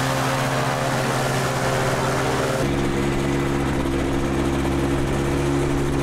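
Small microlight trike aircraft engine idling steadily, a buzzing, lawn-mower-like drone. Partway through the pitch changes abruptly to a slightly different steady note.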